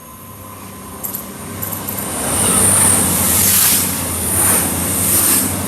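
A passenger train passing close by at speed. It grows louder over the first couple of seconds into a loud, steady rush of wheels on rail and air, swelling and easing a few times.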